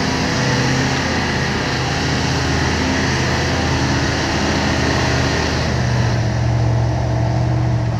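Engine of a modified off-road trial car running steadily under load as it crawls up a rock slope. Its note shifts about six seconds in.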